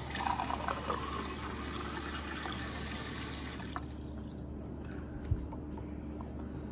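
Kitchen tap running a stream of water into a glass mug, the filling splash stopping abruptly about three and a half seconds in. A short soft thump about five seconds in.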